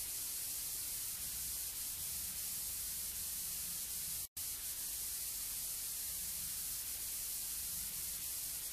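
Steady cassette tape hiss in the silent gap between two tracks of a demo tape, with a brief dropout to silence about four seconds in.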